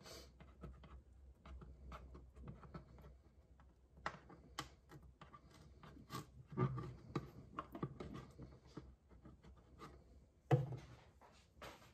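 Fingers rubbing and scraping at the damp label and adhesive on a plastic ketchup bottle: quiet, irregular scratching with small clicks, and a louder knock about ten and a half seconds in.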